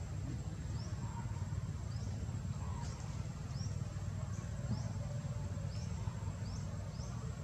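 A bird repeating a short rising chirp, roughly one a second, over a steady high-pitched whine and a low outdoor rumble.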